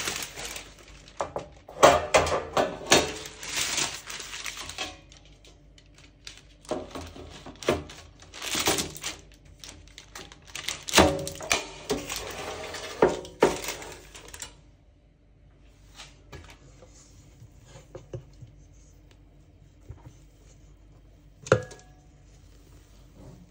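Baking paper crinkling and rustling as it is pressed into a metal baking tray, with light knocks of the tray, for about the first fourteen seconds. Then much quieter, with a few soft taps and one sharp knock near the end.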